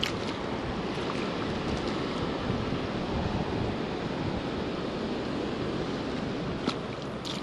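Steady rushing of spillway water, mixed with wind buffeting the microphone. A few sharp clicks stand out near the end.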